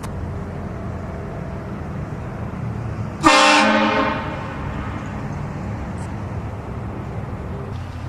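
One short blast of a car-mounted train horn about three seconds in: a loud multi-tone chord that fades out within about a second. A steady low rumble runs underneath.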